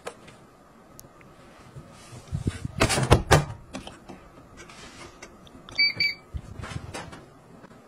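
Bosch front-loading washing machine door pushed shut with loud clunks about three seconds in, then a short double beep from the control panel near six seconds as the dial and buttons are worked, with small clicks around it.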